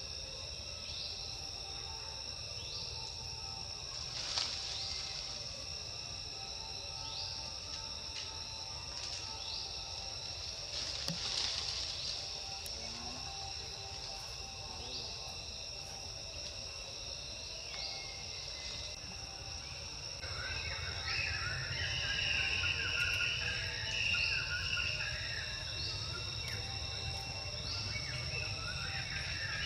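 Steady chorus of chirping insects, crickets among them, with an even high trill and short repeated chirps; about two-thirds of the way in a busier, scratchier chirping layer joins and the sound gets a little louder.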